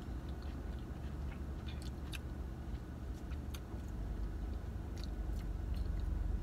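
People chewing and biting into food, a burger and an ice cream sandwich, with scattered short clicks of the mouth. A steady low rumble runs underneath.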